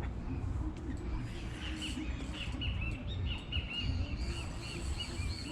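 Birds chirping: many short, high chirps in quick succession, starting about a second and a half in, over a steady low rumble.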